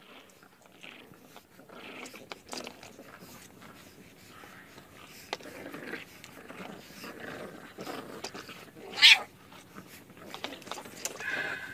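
A pet dog making sounds, with one short, loud sharp sound about nine seconds in.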